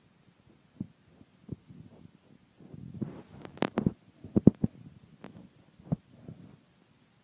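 Irregular dull thumps and sharp clicks over a low rumble, thickest in a quick cluster about three to four and a half seconds in.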